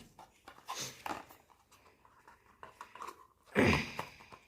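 Packaging being handled and opened by hand: scattered small crinkles and clicks, with one louder burst of rustling about three and a half seconds in.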